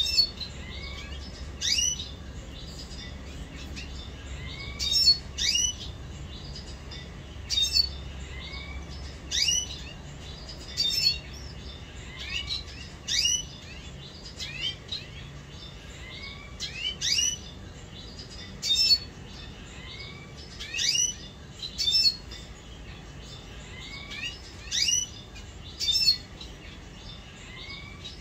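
Caged red siskins calling: short, sharp chirps, one or two at a time about every second, over a faint low hum.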